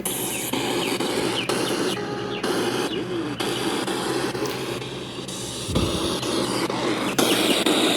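Essential oil diffuser's built-in bird-sound setting playing recorded birdsong through its small speaker: scattered short chirps over a steady hiss and low hum.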